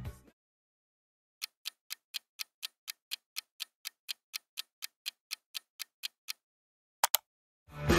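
Countdown-timer ticking sound effect, about four clock-like ticks a second for around five seconds, after a sudden stop in the music. It ends with two quick sharp sounds, and rock music starts again near the end.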